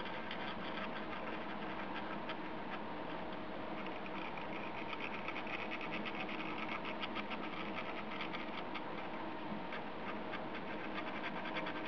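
Small geared motor of a rotating display turntable running steadily, with a dense, fast ticking from its gears that grows a little busier around the middle.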